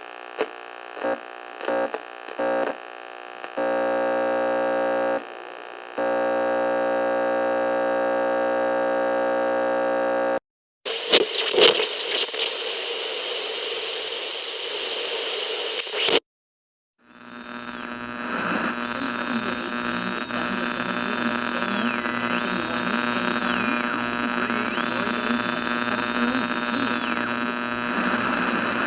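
Radio tuning noise: static and interference changing as the dial moves between stations. It opens with a few short buzzy bursts, then a steady electrical buzz. After a brief cut it turns to hissing static with high whistles sweeping up and down, and after a second short gap to a steady crackling hiss and buzz with a whistling tone that jumps between pitches.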